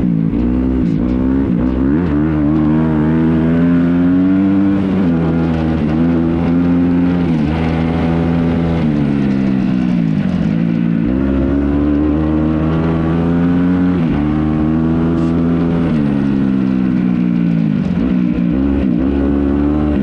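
Dirt bike engine under way on a trail ride, its note climbing as the throttle is held and dropping back, over and over, as the rider rides the throttle and shifts.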